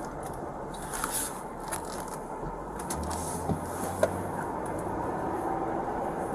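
Road and engine noise inside a moving patrol car's cabin, a steady rumble and hiss, with a few light clicks and a sharper tick about four seconds in.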